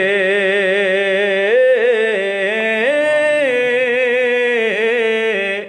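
A man singing a naat solo, drawing out one long melismatic note with a wavering vibrato. The pitch steps up twice, then falls back, and the voice breaks off near the end.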